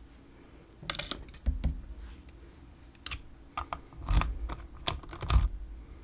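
Irregular light metallic clicks and taps, about a dozen over several seconds, from a lock and lockpicking tools being handled.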